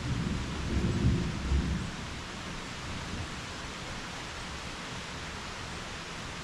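Thunder rumbling low for the first two seconds, loudest about a second in, then dying away. Under it, steady heavy rain hisses evenly throughout.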